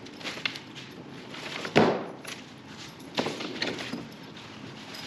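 Packing being taken out of a wooden crate: cardboard and plastic handled with scattered knocks, a loud thump about two seconds in and another knock a second later.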